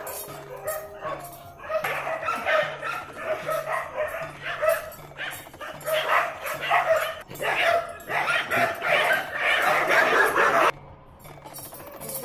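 Dogs barking again and again, busiest in the last few seconds before cutting off abruptly, over a steady low beat.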